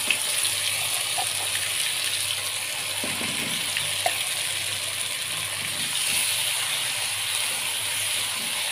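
Ground spice paste and crushed garlic sizzling steadily in hot oil in a wok, stirred with a spatula, with a few light spatula taps.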